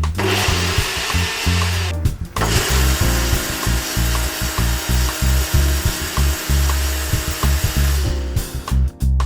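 Background music with a steady bass beat, under a loud, even rushing noise from an unidentified machine. The noise cuts out briefly about two seconds in and stops near the end.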